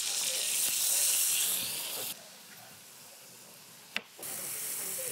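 Food sizzling in a hot frying pan: a steady hiss, loud for about two seconds, then suddenly quieter, with a single sharp click about four seconds in.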